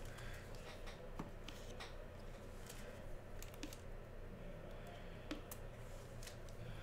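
Faint, scattered light clicks and taps of hard plastic card holders being set down and shifted on the table, over a low steady hum.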